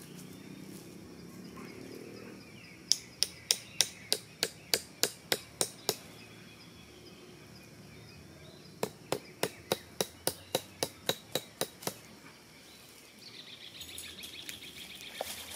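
A tarp guyline stake being hammered into the ground with a hand tool: two runs of about a dozen sharp blows each, three to four a second, with a pause between. Birds call faintly near the end.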